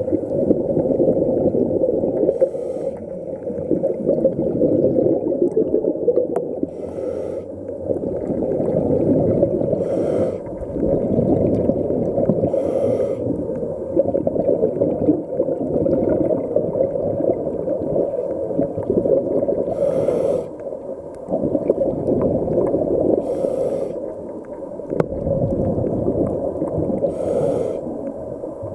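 Scuba diver's breathing through a regulator, heard underwater: a rumbling, gurgling rush of exhaled bubbles, broken every three or four seconds by a short high hiss.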